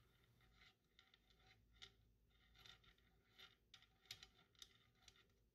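Near silence with a few faint, scattered metal clicks as the M1 Garand's gas cylinder lock is screwed onto the barrel threads by hand.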